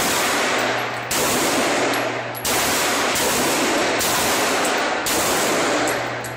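Handguns firing a string of shots in an indoor range, several loud reports about a second apart, each ringing on with a long echo that runs into the next.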